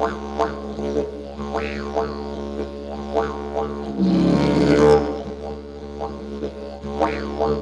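Didgeridoo playing a continuous drone, the tone pulsing rhythmically about twice a second as the player shapes it. About four seconds in comes a louder, rougher blast lasting about a second.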